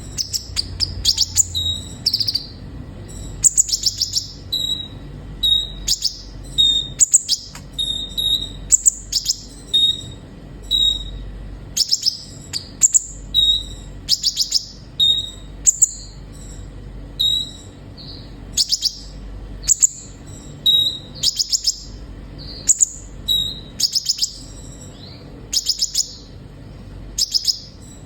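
Kolibri ninja sunbird singing: quick phrases of high, sharp chirps and short twittering trills, repeated every second or so.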